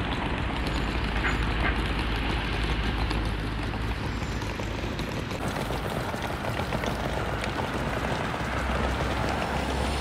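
Steady roadside traffic noise with a continuous low rumble as cars pass on the road.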